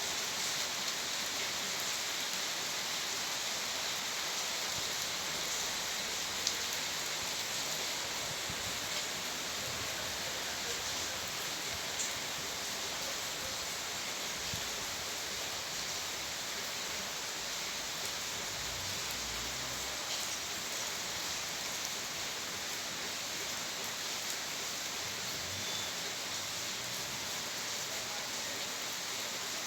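Steady rain falling without thunder: an even hiss with scattered faint drop ticks.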